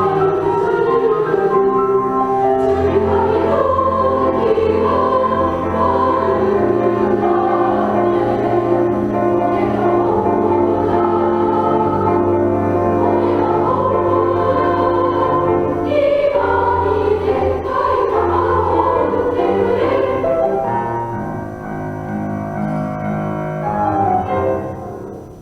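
A school class choir singing a choral piece in several parts, holding sustained chords; the singing thins out in the last few seconds and ends just before the close.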